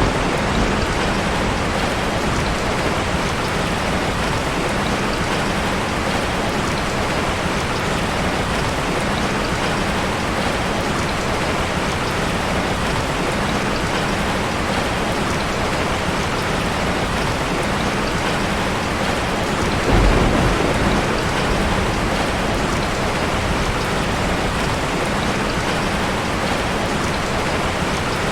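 Steady rain falling, with a brief low rumble of thunder about twenty seconds in.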